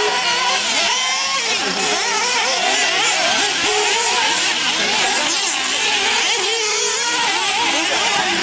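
Several nitro RC buggy engines revving together, their high-pitched notes overlapping and constantly rising and falling as the buggies accelerate and brake around the track.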